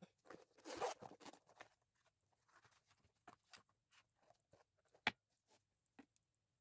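Stationery being handled at a desk: about a second of rustling near the start, then scattered light taps and clicks as a pencil case and notebooks are handled, the sharpest click about five seconds in.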